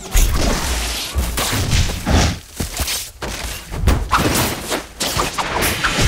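Designed wand-duel spell effects: a quick series of magic blasts, crashes and thuds with whooshes, and short dips between the hits.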